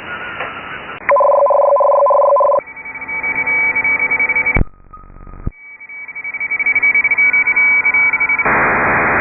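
Shortwave receiver audio tuned around 14.070 MHz, the 20 m digital-mode segment: a loud steady pair of tones, then several thin steady tones from data signals. A click and a brief dropout come midway, and near the end the tones give way to a loud even hiss of band noise.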